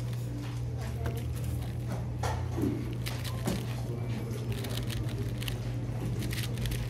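3x3 speed cube being turned fast: a quick, irregular run of light plastic clicks and clacks as the layers snap round, over a steady low hum.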